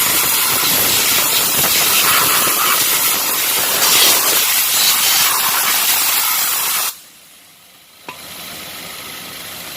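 Pressurised spray hissing loudly and steadily for about seven seconds, then cutting off suddenly; a fainter hiss starts again about a second later.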